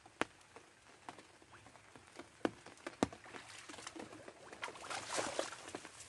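Footsteps wading through shallow muddy paddy water, with scattered splashes and drips. About five seconds in comes a burst of rustling as the tall grass is pushed aside.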